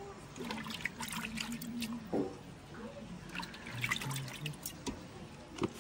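Spiced water sloshing and dripping as fuchka shells are dipped and filled, with many small clicks and splashes.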